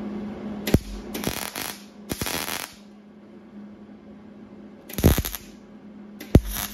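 MIG welder tacking a sheet-steel patch on a car hood: five short bursts of crackling arc, each starting with a sharp click, three in quick succession and two more near the end. The welds are laid as short dots to keep the thin panel from heating up and warping.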